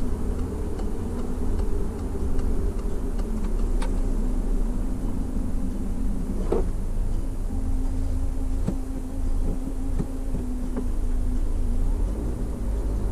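Inside a Peugeot 308's cabin while it is being driven: steady engine and road rumble with a low hum, and a few light clicks now and then.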